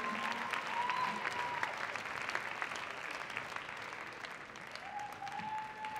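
Audience applause, slowly dying down.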